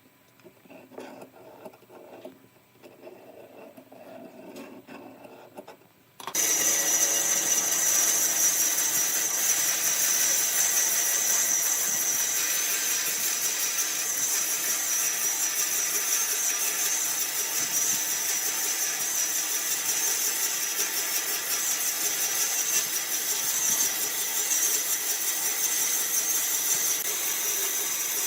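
Wood being worked on a running wood lathe: a steady, loud, hissing cut that starts suddenly about six seconds in. Before that there are only fainter, irregular handling sounds.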